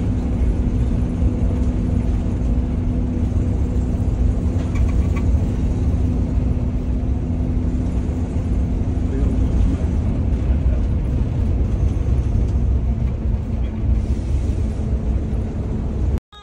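Steady road and engine noise inside a motorhome's cabin while it drives at speed, with a low drone underneath; it cuts off suddenly near the end.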